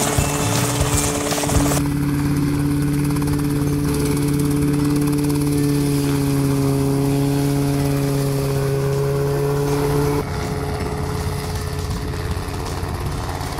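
Rotorway helicopter hovering and flying low: engine and rotor running with a steady pitched drone over a noisy wash. The sound changes abruptly about two seconds in and again near ten seconds.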